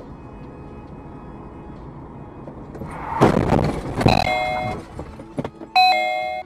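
Steady in-car engine and road noise, then a loud crash about three seconds in as the car collides, with a second hit about a second later. Short steady multi-note tones sound after the second hit and again near the end.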